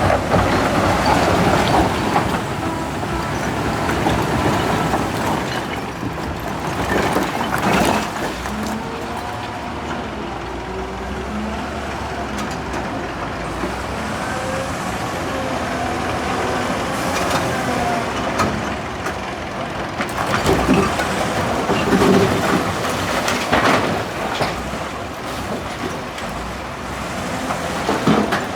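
Heavy construction machinery running continuously, with occasional sharp knocks and clanks.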